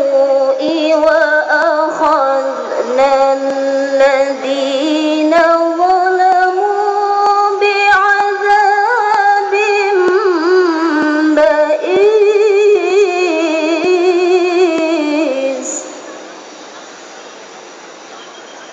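A woman's melodic Quran recitation (tilawah) in long, ornamented held notes with vibrato, the voice climbing to a high sustained pitch through the middle. The phrase ends about sixteen seconds in, leaving only a low background hum.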